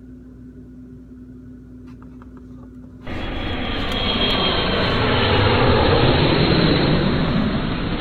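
Low steady hum with a few faint clicks, then about three seconds in a sudden loud jet-aircraft roar that swells and begins to fade near the end, used as an exaggerated noise.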